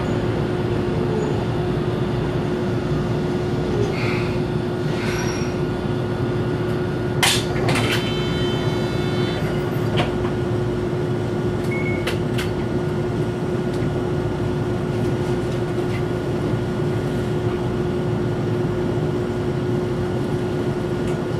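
Inside the cabin of a Toyohashi Railway 780-series tram drawing to a halt at a stop: a steady hum from the tram's onboard equipment. About seven seconds in the doors operate with a sharp clack, followed by a short high electronic tone.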